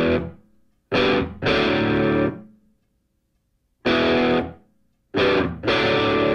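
Music: a distorted electric guitar striking chords in stop-start hits, each cutting off into silence, with a pause of more than a second in the middle.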